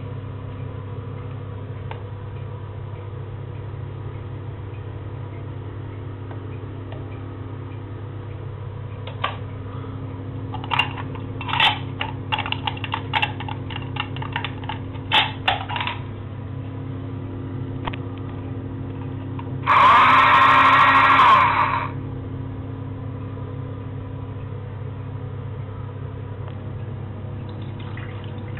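Small battery-operated toy washing machine's motor running with a steady hum. Scattered clicks and rattles sound in the middle, and a loud burst of noise lasting about two seconds comes past the middle.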